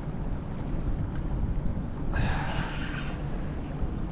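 Wind buffeting a head-mounted action camera's microphone on open water: a steady, uneven low rumble, with a brief hissing rush about two seconds in.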